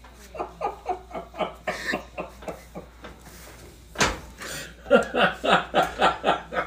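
People laughing hard in breathy, repeated bursts, about four to five a second, stopping for a moment midway. A sudden thump about four seconds in is the loudest sound.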